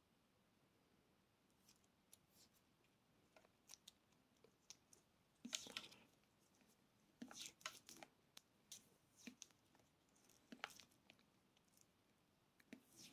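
Faint, scattered small clicks and rustles of hands working thin electrical wires, with a few sharper snips or crackles in the middle and near the end.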